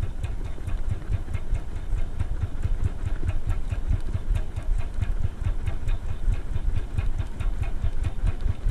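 Spinning reel cranked steadily, its rotor and gears ticking a few times a second, over a loud, fluctuating low rumble.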